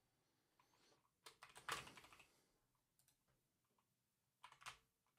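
Faint computer keyboard typing in two short bursts of keystrokes, a longer one about a second in and a brief one near the end.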